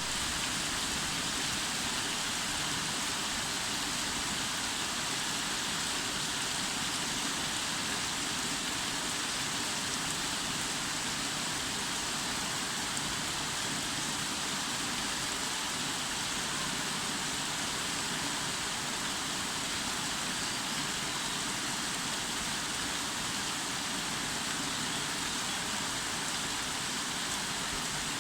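Steady rain falling on a roof garden: an even, unbroken hiss of rain with no lulls.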